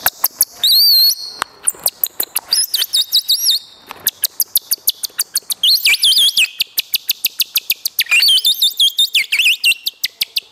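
Bird-imitation whistle blown behind cupped hands, mimicking birdsong: a fast run of sharp clicks broken by several high warbling trills that glide up and down.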